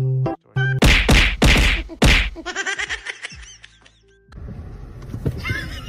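Edited-in cartoon sound effects over music: a couple of short repeated notes, then three loud whacking hits about half a second apart, then a short fluttering jingle. About four seconds in, the sound cuts to steady background noise.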